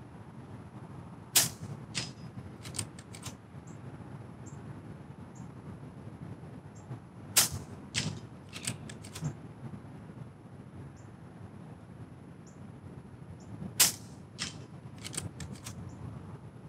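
Brocock Ghost HP .22 PCP air rifle fired three times, about six seconds apart, each shot a sharp moderated crack. Each shot is followed by a few smaller clicks of the side lever being worked to chamber the next pellet from the magazine.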